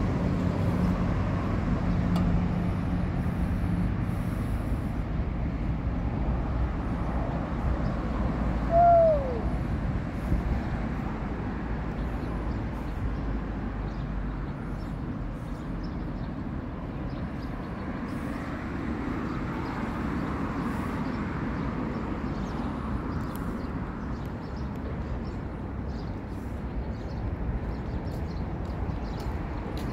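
Outdoor ambience: a steady low rumble, with one short, loud note sliding downward about nine seconds in.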